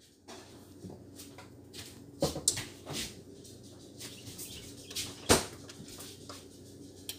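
A few short, sharp knocks and clicks of utensil and pan handling at a frying pan of melting butter on an electric stove: two close together a little over two seconds in, another at three seconds, and the loudest about five seconds in. Quiet in between.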